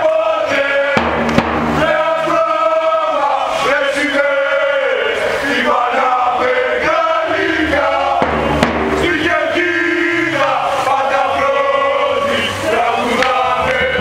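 Many male voices singing a football chant together, with a steady low accompaniment underneath.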